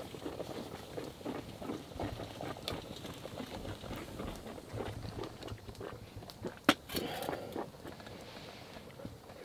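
Cloth rustling as a neck gaiter is handled, stretched and bunched up in the hands, over the crackle of a campfire, with a sharp click about seven seconds in.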